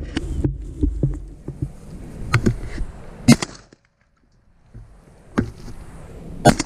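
Shotgun shots at doves: two sharp, loud blasts about three seconds apart, the first about a third of the way in and the second near the end, with fainter cracks a moment before each.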